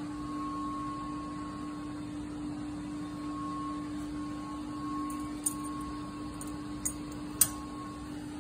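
Steady hum of plant-room electrical equipment, one constant mid-low tone with a fainter higher one. Three sharp clicks come in the last few seconds, the last the loudest.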